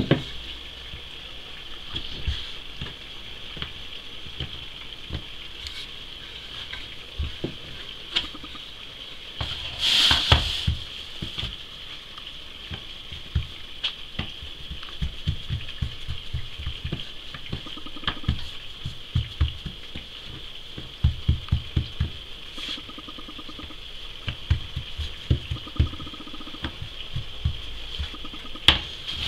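Soft taps and thuds of hands and a wooden rolling pin pressing floured dough balls flat on a wooden tabletop, over a steady faint hiss. The taps come in quick runs, thickest in the last third, and there is a brief louder rustle about ten seconds in.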